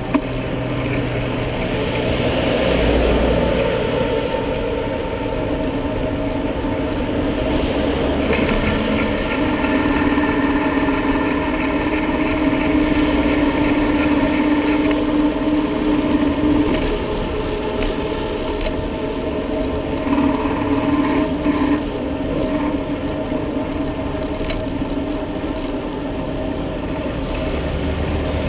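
Road traffic noise heard from a moving bicycle, with a steady engine hum from passing vehicles that stands out for several seconds from about eight seconds in.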